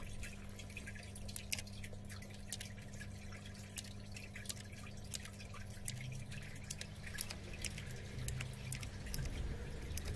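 Royal Kludge RK61 mechanical keyboard keys being pressed singly, sharp irregular clicks about once or twice a second over a low steady hum.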